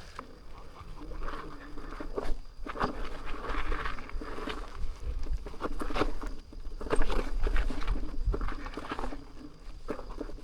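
Off-road electric unicycle rolling over a rocky dirt trail: the tyre crunches on gravel and rock with irregular knocks and rattles, over a low rumble.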